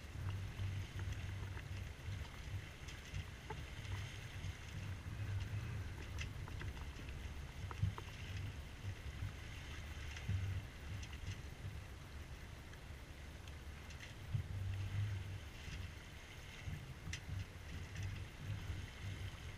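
Water rushing along the hull of a C&C Mirage 24 sailboat under sail, with wind buffeting the microphone in a low, uneven rumble and a few scattered light ticks.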